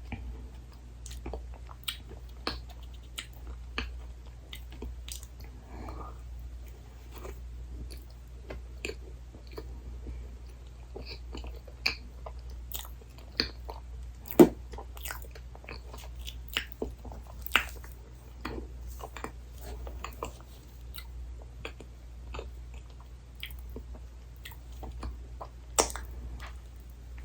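Close-miked mouth sounds of a person biting into and chewing soft dessert: irregular wet clicks and smacks, with a few louder bites about halfway through and near the end, over a steady low hum.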